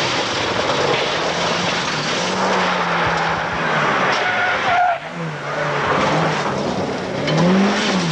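Two rally cars driven hard through a loose-surface corner, one after the other, engines at high revs and tyres scrabbling over dust and grit. The engine note of the second car dips and then climbs again near the end.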